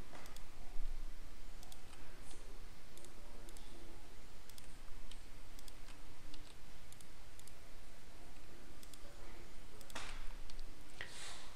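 Computer mouse clicking, each click a quick press-and-release pair, every second or so while vertices are selected one by one in the 3D modelling software. A short breathy rush of noise comes about ten seconds in and again just before the end.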